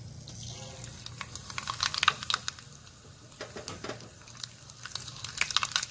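Hot oil crackling in a pan, then mustard seeds popping in it. The sharp crackles come sparse at first and grow thicker near the end, the sign the oil is hot enough for tempering.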